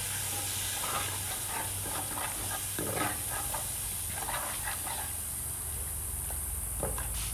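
Curry base of onion, spices and green seasoning sizzling and hissing in a pot after a little water is added, with irregular crackles and pops.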